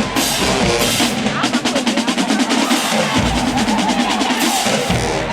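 Brass marching band playing loudly with its drumline; a fast, even run of snare strokes comes in about a second in and lasts under two seconds.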